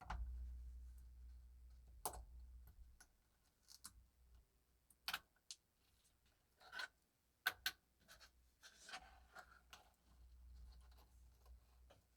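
Faint scattered clicks and light scraping of a watch bracelet clasp and small metal parts being handled and worked on. About half a dozen sharp little clicks come through, with a soft bump at the start and a brief scrape about two thirds of the way through.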